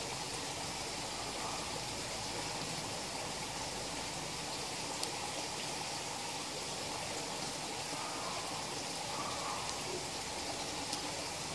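Steady rush of running water into a koi pond, with a couple of faint ticks.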